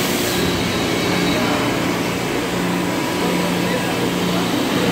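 Steady din of industrial machinery running on a plastics thermoforming factory floor, with a low hum that comes and goes.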